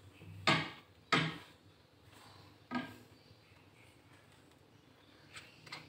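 Metal spoon knocking against a ceramic plate of breadcrumbs: two sharp knocks about half a second in and a second later, then a lighter clink with a short ring near three seconds, and a couple of faint ticks near the end.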